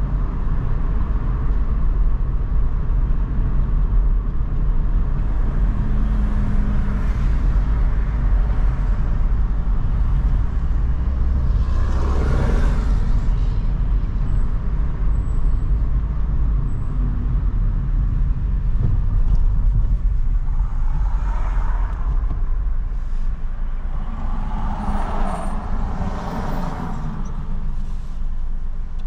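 Road noise heard from inside a moving car: a steady low engine and tyre rumble, which swells louder about twelve seconds in and twice more near the end.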